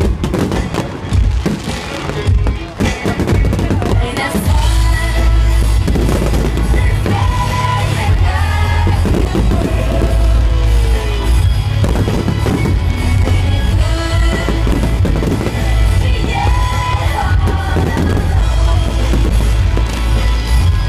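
Loud music with singing and a heavy bass, mixed with fireworks bangs and crackling that are thickest in the first few seconds.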